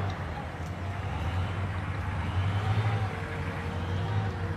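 Heavy armored military vehicles driving through loose sand, their engines running with a steady low drone.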